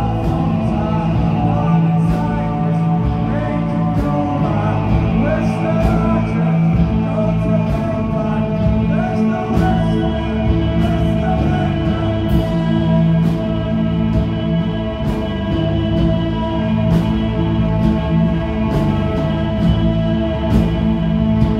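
Live rock band playing: electric guitars and bass over drums.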